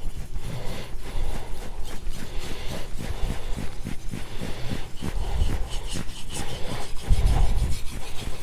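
Carbon-steel kitchen knife blade stroked rapidly back and forth on a wet, fine-grit sharpening stone: a rhythmic scraping at about four to five strokes a second, with a couple of heavier low thuds in the second half.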